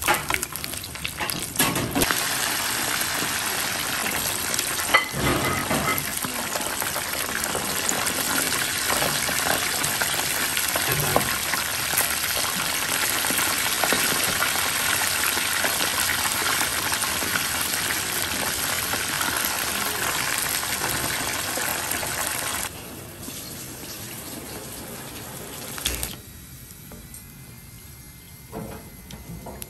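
Battered pieces of spiny porcupine pufferfish deep-frying in hot oil, a loud, steady sizzle that cuts off about three-quarters of the way through. After it, a quieter background with a single knock.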